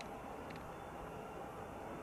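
Faint, steady rumble with a light whine from a Hawker 750 business jet's twin turbofan engines as it prepares for its takeoff roll.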